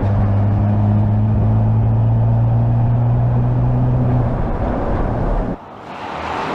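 Porsche Cayenne S E-Hybrid's 3.0-litre twin-turbo V6 running at a steady cruise on the road, a steady low drone over tyre and road noise. The drone fades out about four seconds in, and the sound cuts off abruptly near the end into a quieter, rising whoosh.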